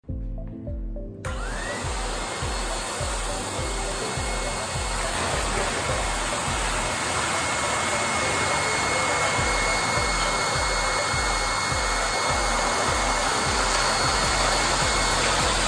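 Low-pressure electric air blower switched on about a second in, whining up to speed and then running with a steady rushing noise as it feeds air to the air beams that lift the heavy welding table.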